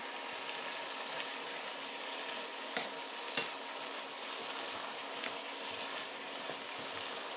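Sautéed vegetables and chicken meatballs sizzling in a pan while a wooden spatula stirs and tosses them: a steady frying hiss with a couple of light spatula clicks around the middle.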